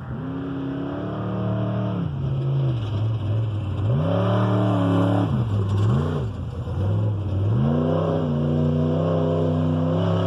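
Desert race car's engine revving hard and backing off several times as it comes closer, the pitch climbing and dropping with each throttle burst and growing louder, then holding a high steady note near the end.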